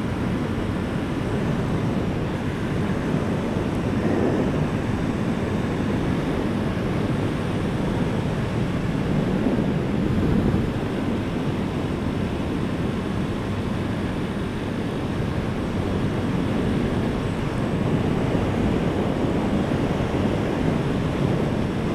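Steady wind rush over the camera microphone mixed with the engine and road noise of a Honda CB 250F Twister motorcycle cruising at about 100 km/h.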